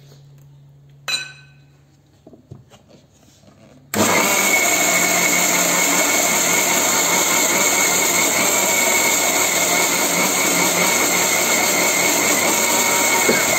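Electric mixer grinder with a steel jar switching on about four seconds in and running steadily, grinding roasted peanuts, sesame and a little water into a chutney paste. Before it starts there is a light metallic clink and a few small knocks as the lid goes on the jar.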